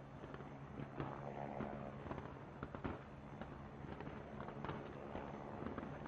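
A fireworks display heard from a distance: irregular bangs and crackles of pyrotechnics going off, some close together, over a steady low hum.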